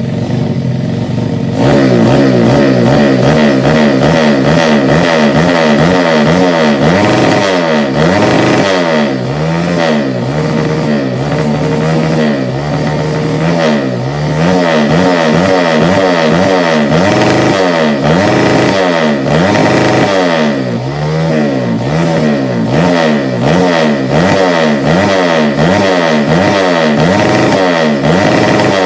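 Yamaha Jupiter Z underbone's road-race-tuned 130cc four-stroke single running stationary through an aftermarket slip-on exhaust. After several seconds of steady running it is revved over and over in quick throttle blips, the pitch climbing and dropping about once a second or faster.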